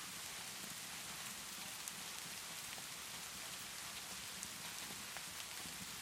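Steady rainfall hissing evenly, with a few sharp crackles from a wood fire in a fireplace.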